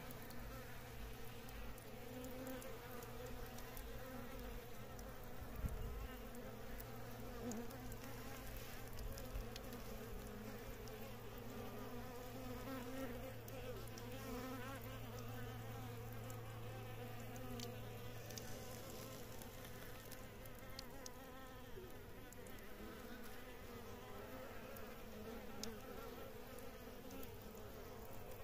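Flying insects buzzing close by, their wavering drone rising and falling in pitch throughout, with a single dull thump about six seconds in.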